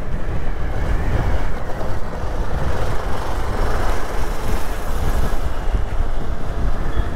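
Riding noise on a motorcycle under way: wind rushing over the microphone with steady road and engine rumble beneath it.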